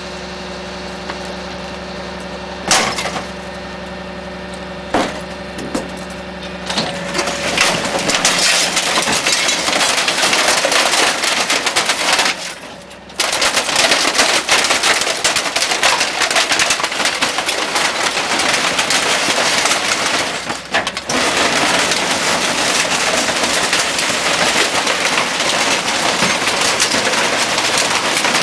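Garbage truck's rear compactor crushing a load of trash: over the steady run of the truck's engine come a few sharp cracks, then from about seven seconds in a dense, continuous crackling and crunching of breaking material as the packer blade presses the load.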